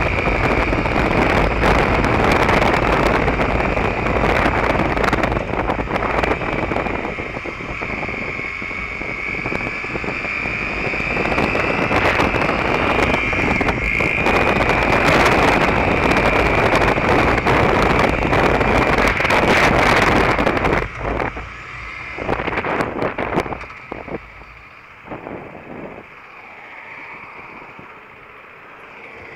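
Wind rushing over the microphone of a Derbi Terra Adventure motorcycle under way at road speed, with the engine running beneath it. About two-thirds of the way through, the wind noise falls away as the bike slows, leaving a quieter, uneven engine sound.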